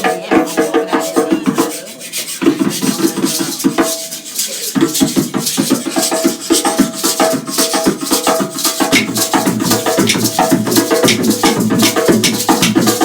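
Drums playing a fast, dense percussion rhythm, thinning briefly twice in the first few seconds, then fuller and deeper from about nine seconds in.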